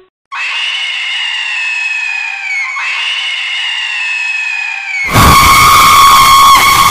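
Horror-film sound effects: two eerie wails, each slowly falling in pitch for about two and a half seconds, then about five seconds in a sudden, much louder, harsh jump-scare scream.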